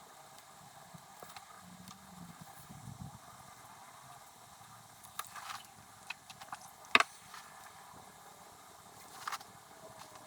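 Faint writing sounds of pen and paper: a steady light hiss with a few sharp clicks and taps, the loudest about seven seconds in and another near the end.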